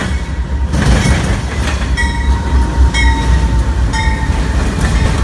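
BNSF 699, a GE Dash 9-44CW diesel locomotive, passing at close range with a steady deep engine rumble. Through the middle a bell rings about once a second, three strikes.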